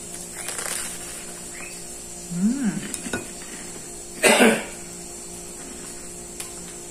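A person eating at a table over a steady background hum. There are faint handling sounds on a plate, a short low hum from the throat about two and a half seconds in, and one short loud noise about four seconds in.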